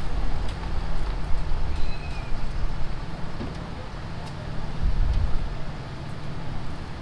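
Jeepney riding in city traffic: its diesel engine running under a steady low rumble of road noise, which swells briefly about five seconds in.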